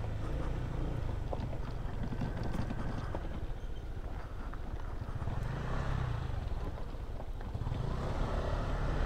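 Honda ADV 150 scooter's single-cylinder engine running steadily at low speed over a rough dirt road, with small knocks and rattles from the bumpy surface.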